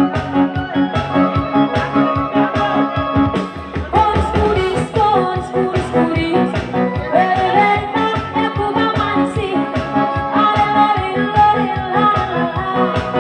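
Live band music played through PA speakers: an electronic keyboard over a steady programmed drum beat, with a singer's voice coming in about four seconds in.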